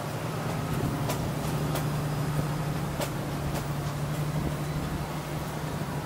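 Steady low hum and rumble of a moving motor vehicle, with a few light clicks scattered through it.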